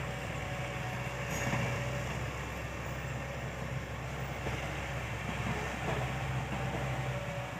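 Large excavator's diesel engine running steadily, swelling slightly in level about a second and a half in and again near six seconds.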